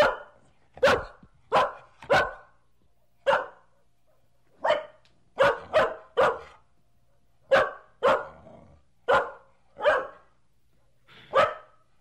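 Medium-sized dog barking: about fourteen barks, singly and in quick runs of two or three, with short pauses between them.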